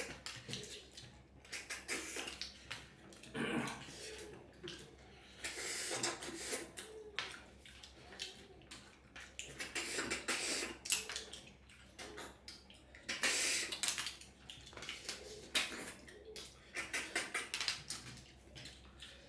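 Close-up eating sounds: wet slurping as snail meat is sucked from the shells, with chewing and many small clicks of fingers and shells on steel plates. The loudest slurps come in bursts about a third of the way in, halfway through and about two-thirds in.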